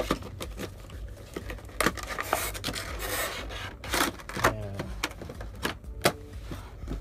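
A cardboard box being opened and a clear plastic blister tray slid out of it: paper and plastic scraping and rubbing, with a longer rustle partway through and several sharp clicks and taps of plastic against the wooden table.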